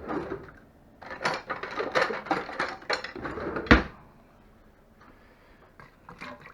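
A kitchen drawer pulled open and metal utensils clattering as someone rummages for a spoon, with a single loud knock about three and a half seconds in.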